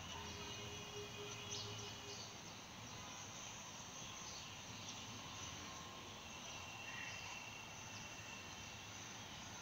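Nature ambience: a faint, steady chorus of insects in a high band, with a few brief high chirps.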